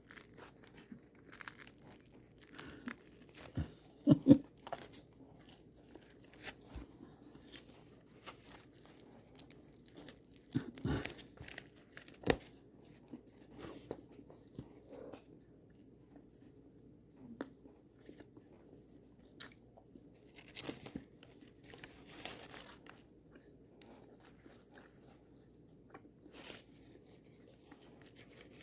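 A person biting into and chewing sourdough bread with a tough, chewy crust. Irregular crunches and mouth sounds, the loudest about four and eleven seconds in.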